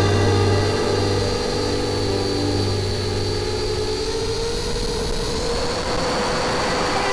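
Brushless motors and tri-blade propellers of a 5-inch FPV racing quad whining steadily, heard through its onboard camera. The pitch rises slowly around the middle as the quad climbs.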